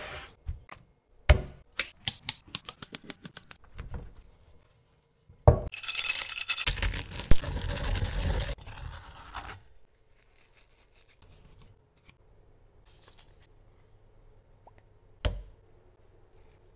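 Stone mortar and pestle crushing dry flakes: a loud, dense, gritty grinding for about two and a half seconds in the middle. Before it comes a fast run of light taps and a single knock, and near the end one sharp knock.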